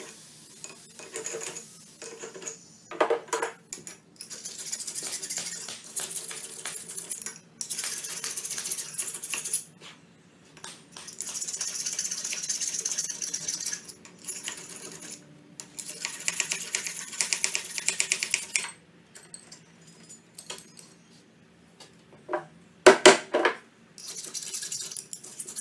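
A chisel and a file scraping the cast steel inside an anvil's hardy hole, cleaning crusty casting flash out of it. The rasping comes in stretches of a few seconds, with sharp metallic clinks now and then and a loud clank near the end.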